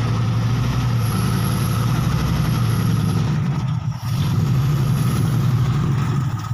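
Classic Chevrolet Impala's engine running steadily at low revs with a low, even note as the car creeps forward, easing off briefly about four seconds in.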